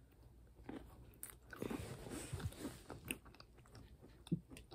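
Goldfish crackers being chewed close to the microphone: faint, irregular crunching, busiest in the middle, with one sharp click near the end.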